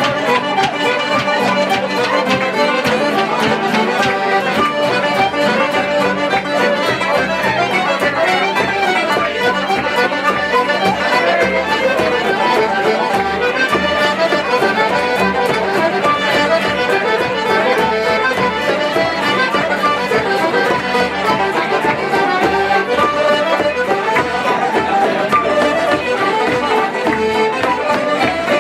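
Irish traditional music from a session group playing a tune together: button accordion, fiddle, wooden flute, banjo and keyboard, with a bodhrán beating steady time.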